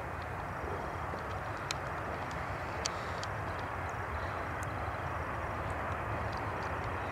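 Jet airliner engines: a steady rush of noise over a low rumble, with a few faint short ticks about two to three seconds in.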